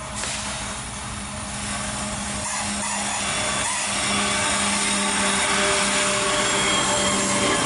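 Diesel freight locomotive passing close at speed: a steady engine drone with a low hum over rising wheel and rail noise, growing louder as it goes by.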